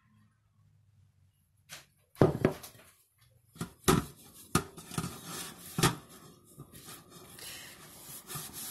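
Cast iron lid knocking and clunking against a stainless steel sink as it is scrubbed with an oily rag, with rubbing between the knocks; the scrubbing is to work light rust off the iron. The knocks begin about two seconds in, after a near-silent pour of oil.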